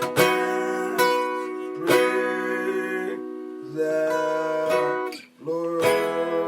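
Guitar playing slow chords, each struck and left to ring. There are several strokes in the first two seconds, a held passage, a brief drop out, and a fresh chord near the end.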